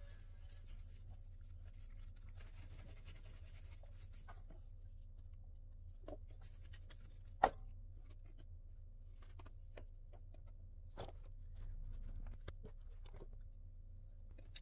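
Scattered faint clicks and taps over a steady low hum, with one sharper click about seven and a half seconds in.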